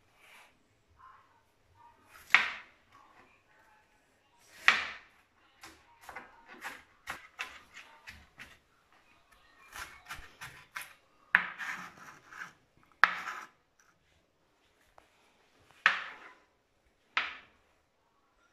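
Kitchen knife chopping an onion on a plastic cutting board: irregular sharp knocks of the blade on the board, with a run of quicker, lighter taps in the middle.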